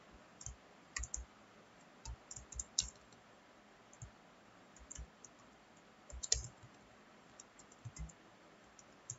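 Keystrokes on a computer keyboard typing text: irregular sharp clicks in short clusters with pauses between, some keys landing with a low thud.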